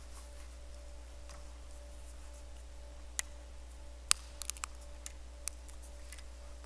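A few sharp clicks and small clinks of objects being handled at a church altar, one about three seconds in and the loudest cluster about a second later, over a faint steady hum.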